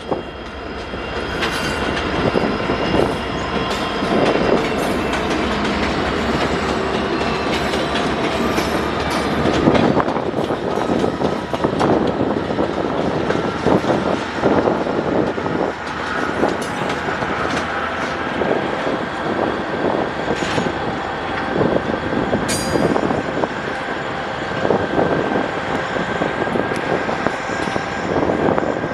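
Train rolling past, its wheels clicking over rail joints in a steady irregular clatter, with a thin high-pitched wheel squeal running underneath.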